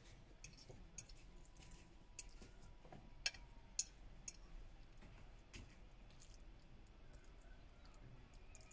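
Near silence with a few faint, sharp clicks scattered through it; the two loudest come about half a second apart, a little over three seconds in.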